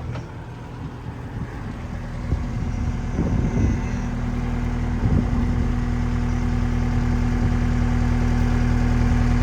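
Caterpillar 246D3 skid steer's diesel engine idling steadily, growing gradually louder, with a couple of brief low bumps about three and five seconds in.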